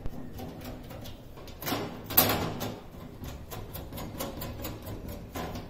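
A hand screwdriver and metal fittings clicking, knocking and scraping against a sheet-metal vending machine cabinet as screws and brackets are fitted, with a louder scraping clatter about two seconds in.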